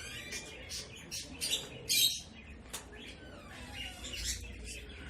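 Caged small pet parrots chirping: a quick run of short, shrill calls, loudest about two seconds in, then fewer, softer chirps and short whistles.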